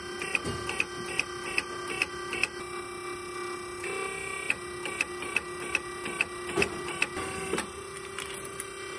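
Hydraulic hose crimping machine running: a steady motor-and-pump hum with sharp clicks coming about two to three a second, pausing briefly a few seconds in before starting again.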